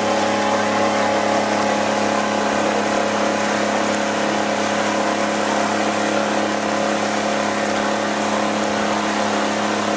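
Engine of a tour vehicle running steadily at constant speed: an even hum with a fixed pitch over a noise wash, unchanging throughout.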